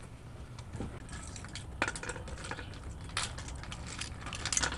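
Loose white gravel clicking and scraping as it is dug at with spoons: scattered small clinks and rattles, the sharpest about two, three and four and a half seconds in.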